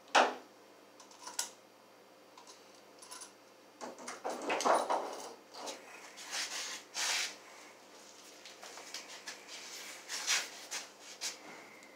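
Hand tools and small plastic electrical parts being handled on a table: a sharp knock just after the start, then scattered clicks, clatter and rustling, busiest from about four to seven seconds in.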